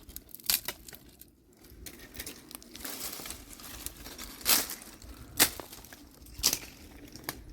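Dry twigs and brush rustling and crackling, with several sharp snaps spread through it.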